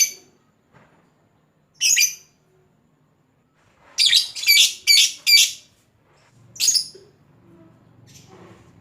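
Lovebird giving short, shrill, harsh calls: single calls at the start and about two seconds in, a quick run of four around the middle, and one more near the end.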